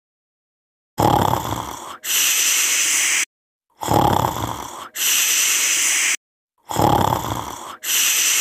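Snoring sound effect: a snore on the in-breath followed by a steady hissing out-breath, repeated three times in identical cycles like a looped effect.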